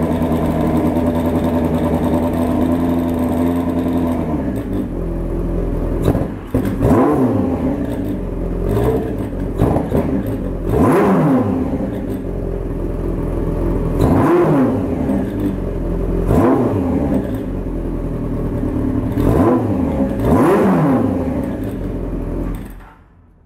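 Kawasaki Z1's air-cooled inline-four, breathing through open carburettors and a four-into-one exhaust, idling steadily, then revved in neutral with about eight sharp throttle blips that rise and fall quickly. It is switched off about a second before the end.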